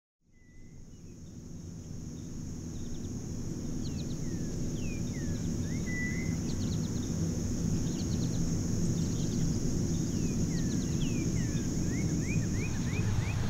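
Outdoor ambience fading in: a steady high-pitched insect drone, with scattered bird chirps that sweep quickly down or up in pitch, over a low steady rumble.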